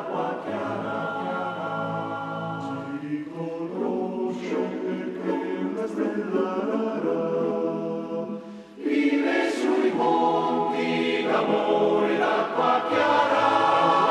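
A choir singing long held chords of a song; it grows louder about nine seconds in.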